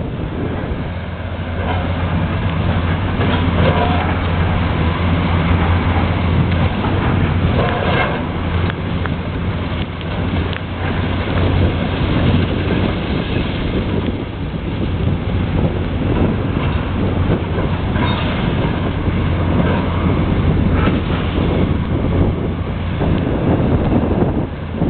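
Heavy demolition machine's diesel engine running steadily, with scattered sharp knocks and clatter over the drone.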